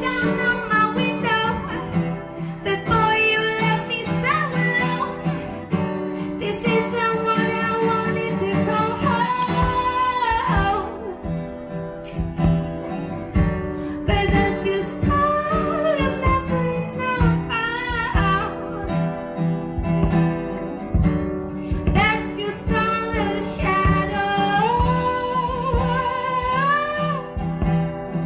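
A woman sings a slow, held melody with long gliding notes over a strummed steel-string acoustic guitar.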